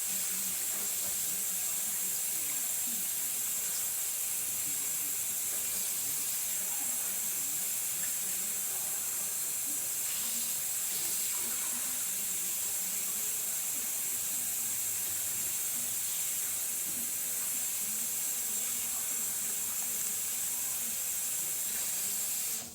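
A steady, loud, high hiss that cuts off suddenly at the end.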